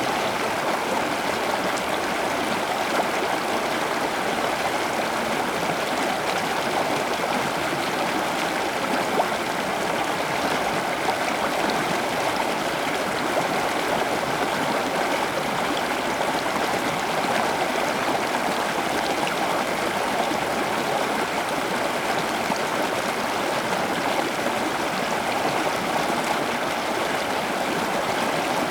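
Running water flowing steadily, a continuous rushing and trickling.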